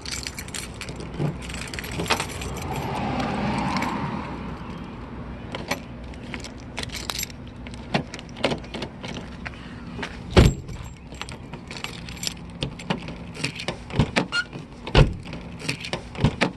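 Keys jangling and clicking in the passenger door lock of a 2002 Subaru Impreza as the key is worked and turned, the repaired lock mechanism clicking, with a scraping stretch a few seconds in and a few heavier knocks later on.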